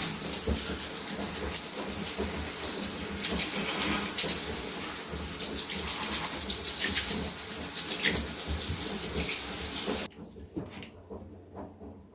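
Running water flowing steadily, as from a tap, cut off abruptly about ten seconds in.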